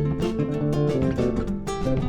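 Instrumental Argentine folk music: guitar and charango strumming and plucking quick notes over electric bass.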